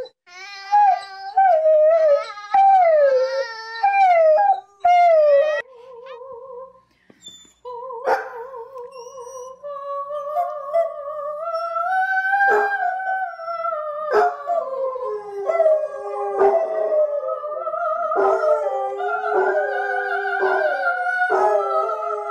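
Dogs howling. First comes a series of short, wavering howls that fall in pitch. After a brief lull, a basset hound howls at length with music playing.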